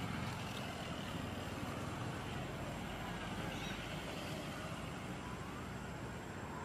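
Steady rumble of distant road traffic, with faint rising and falling tones from passing engines.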